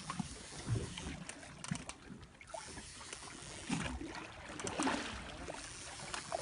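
Small knocks and clicks of handling aboard a fishing boat, over a light rush of water that swells around four to five seconds in.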